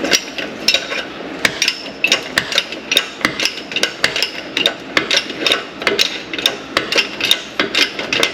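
Repeated sharp metal-on-metal strikes, about three a second, each with a brief ringing tone.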